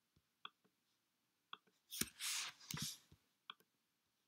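Faint scattered computer keyboard and mouse clicks from editing a spreadsheet cell. A brief breathy, hissing noise with a couple of soft thumps comes about two seconds in.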